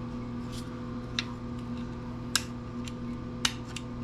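A few sharp, separate clicks and taps, the strongest three about a second apart, from small metal and plastic planer parts being handled on a workbench, over a steady low hum.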